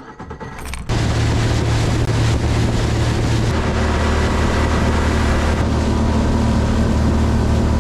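A motorboat's engine running steadily at speed, with wind on the microphone and water rushing past the hull; it comes in loud about a second in.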